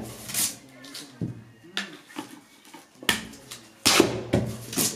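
A worker packing a cardboard sky-shot firework tube by hand, pressing and tapping the filling down at the tube's mouth: about eight irregular sharp knocks and thuds, the loudest a little after three and four seconds in.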